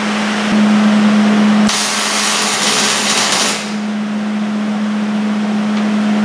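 MIG welder laying a short tack weld on a steel truck frame: the arc sounds as a dense hiss for about two seconds, starting near the two-second mark and stopping suddenly. A steady hum runs underneath, a little louder in the first second or so.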